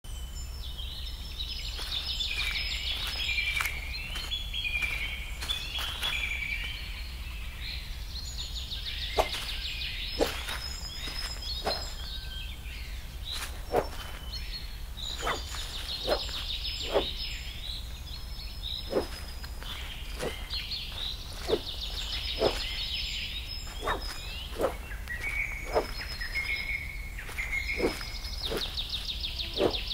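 Woodland ambience: a songbird repeats a rapid trilling song phrase every five or six seconds over a steady low rumble. Scattered sharp clicks and crunches come in between.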